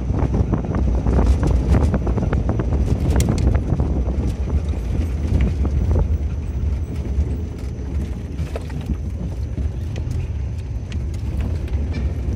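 Vehicle driving over a rough, rutted dirt road: a steady low rumble with frequent knocks and rattles from the bumps, a little quieter in the second half.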